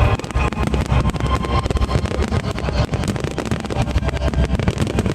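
Fireworks bursting overhead: a dense run of booms and crackles over a continuous low rumble.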